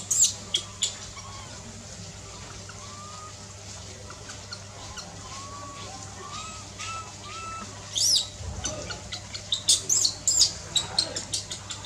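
Baby long-tailed macaques crying with short, high-pitched squeals: a few at the start, softer repeated calls in the middle, and a quick run of squeals from about eight seconds in.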